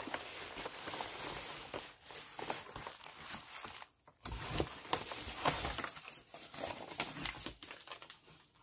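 Paper crinkling and rustling as a yellow padded kraft mailer is handled and a tissue-paper bundle is slid out of it, with many small crackles and a short break about halfway through.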